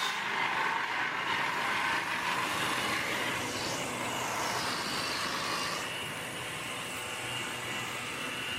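Sawmill machinery running steadily, with a high whine that rises and falls in pitch in the middle.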